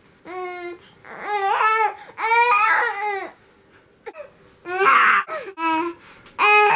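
Baby babbling and squealing in about six short, high-pitched vocal sounds that bend up and down in pitch, some with a fussy, cry-like edge.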